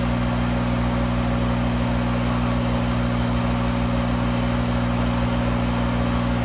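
Monarch 10EE toolroom lathe running steadily, a constant electric hum with a low drone under a light hiss.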